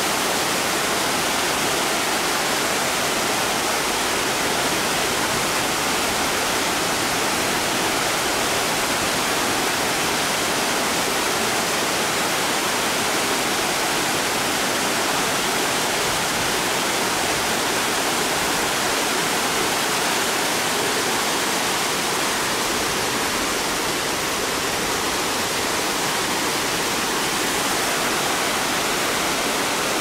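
Water of a cascading waterfall rushing and splashing over boulders: a steady, loud, unbroken rush.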